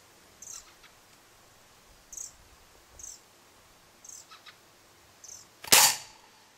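A 4.5 mm air rifle fires a single shot, a sharp crack about five and a half seconds in and the loudest sound. Short, high bird chirps come every second or so before it.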